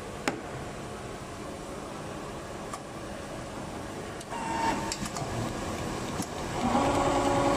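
Steady machine-room hum with a sharp click about a third of a second in. Then, about four seconds in, a Richpeace automatic template sewing machine starts up, and near the end it runs with a loud, steady hum of several pitches as its motors drive the template.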